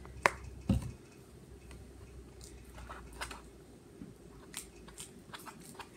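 A plastic contact-solution bottle being handled, with two sharp knocks in the first second, the second one thudding. Then scattered light clicks and taps as the slime is mixed in a bowl.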